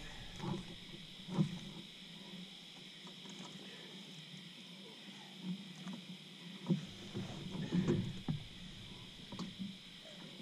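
Scattered knocks and bumps from a flathead catfish being handled and lifted in a small boat, with a flurry of them about two-thirds through. Underneath runs a steady high chirring of night insects.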